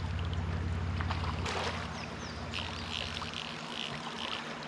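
Steady rushing of river current, with a steady low mechanical hum from a camera drone hovering overhead that thins out partway through.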